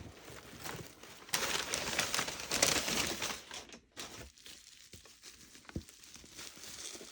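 Packaging material crinkling and rustling as a parcel is unwrapped by hand, loudest for a couple of seconds starting about a second in, then quieter handling.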